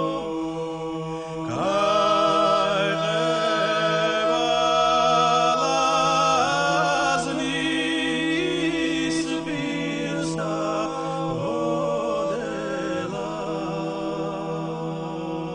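Georgian folk song sung by several voices in polyphony, the upper voices moving over a steady low held drone.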